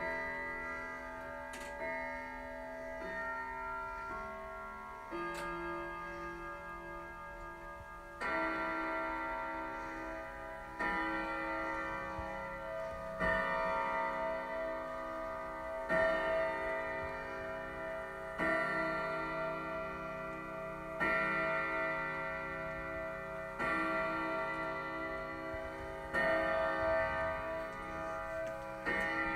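Grandfather clock chiming. The last notes of its chime melody sound first, then from about eight seconds in the hour strike begins: one bell note of the same pitch roughly every two and a half seconds, nine strikes in all, each left to ring on.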